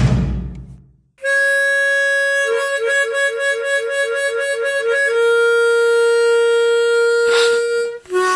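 Harmonica playing: a held note, then a quick warble between two close notes at about four a second, then a long held lower note. A short hiss-like burst and a brief final note come near the end. A falling glide dies away just before the playing starts.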